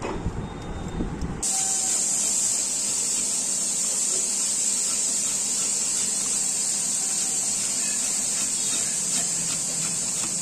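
Low rumble, like wind on the microphone, that gives way abruptly about a second and a half in to a steady, even hiss.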